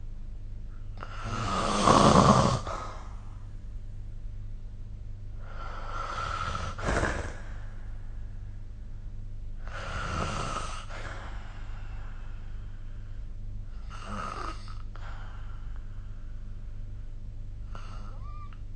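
A sleeping person snoring: four snores about four seconds apart, the first the loudest, then a faint breath near the end, over a steady low hum.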